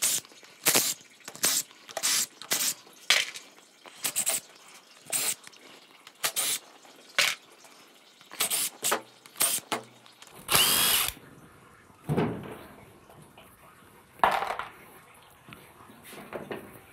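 Cordless driver spinning out the oil-pan bolts of a 68RFE automatic transmission in many short trigger bursts, with one longer whining run about ten seconds in. A couple of duller knocks follow in the last few seconds.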